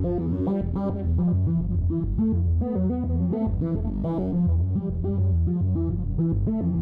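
Electronic music loop from a subtractive digital synthesizer-sequencer plugin: a fast sequence of short notes over a heavy bass line.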